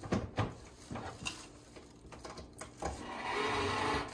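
A few light knocks and clicks of things handled on a kitchen counter, then about a second of steady rustling near the end as paper towel is pulled off the roll.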